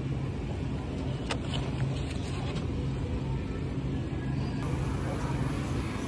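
Steady low hum of a supermarket's refrigerated display case and store ambience, with a few light clicks and taps between one and three seconds in as an egg carton is handled and taken off the shelf.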